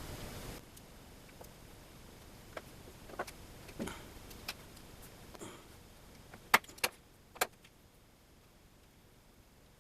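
Scattered light clicks and taps of small vacuum fittings and tubing being handled, with three sharper clicks close together past the middle. A steady background hiss cuts off about half a second in.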